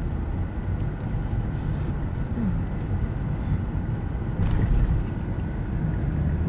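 Car cabin noise while driving slowly: a steady low engine and road rumble, with a short burst of louder noise about four and a half seconds in.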